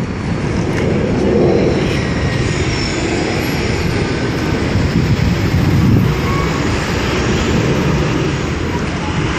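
McDonnell Douglas MD-88's twin Pratt & Whitney JT8D jet engines heard as a steady low rumble while the airliner climbs away after takeoff, mixed with city street noise.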